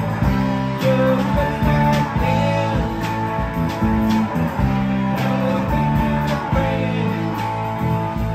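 Live rock band playing: electric guitars and electric bass over a drum kit, with sustained bass notes and guitar lines over a steady drumbeat.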